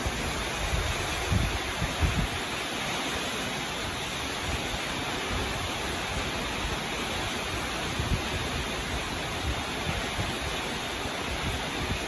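Heavy tropical-storm rain falling steadily in a dense, even hiss, with a few brief low rumbles of wind hitting the microphone.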